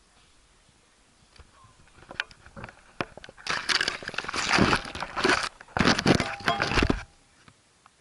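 Leafy branches rustling and scraping against an action camera as it is pushed into a bush. Scattered crackles build into two loud stretches of dense crackling rustle, which stop abruptly about seven seconds in.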